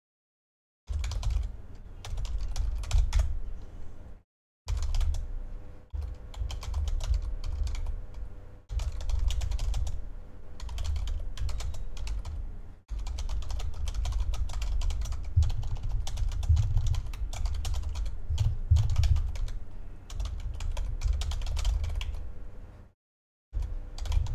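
Typing on a computer keyboard: a fast, continuous run of key clicks, broken by a couple of short pauses.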